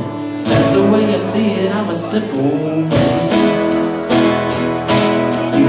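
Live country band playing an instrumental break: acoustic guitar strumming about once a second under upright bass and bowed fiddle.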